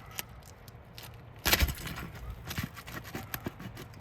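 Scattered clicks, scrapes and crackles of an asphalt roof shingle being handled and pried at, with one loud crunch about a second and a half in.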